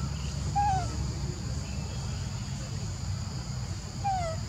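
Steady high insect buzzing over a low rumble, broken twice by a short call that glides slightly downward: once about half a second in and again near the end.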